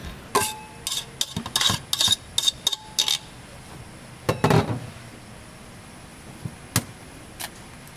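Metal kitchen utensils and dishes clinking and knocking during street-stall cooking: a quick run of sharp clinks, some ringing briefly, in the first three seconds, a heavier clatter about four and a half seconds in, then a few scattered clicks.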